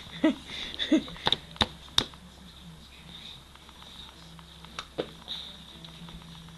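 A few sharp hand slaps and taps on a plastic high-chair tray: a cluster in the first two seconds and two more about five seconds in. A faint steady high whine sits underneath.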